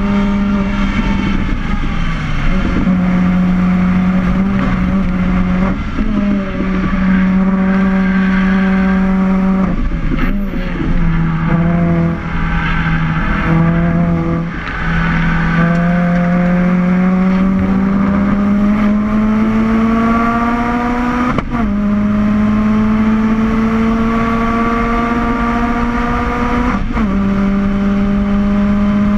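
Car engine pulling hard under sustained throttle. Its pitch climbs slowly through each gear and drops abruptly at a gear change or lift about four times, the clearest about two-thirds through and near the end.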